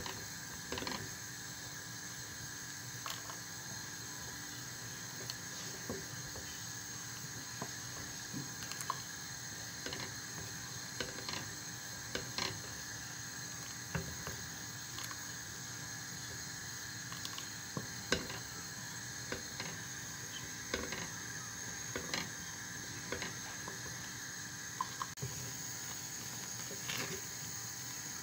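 Wooden spoon stirring thick barley-flour porridge in a stainless steel saucepan: irregular scrapes and knocks of the spoon against the pan, over a steady background hum.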